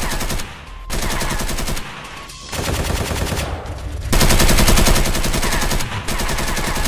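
Automatic-gunfire sound effect: several long bursts of rapid machine-gun fire, broken by short pauses.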